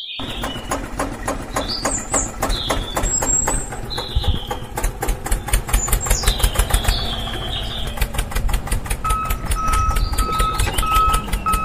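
Tractor engine running, a fast even chatter of firing pulses over a low rumble, with birds chirping above it. From about nine seconds in, a short beep repeats about once every 0.7 seconds.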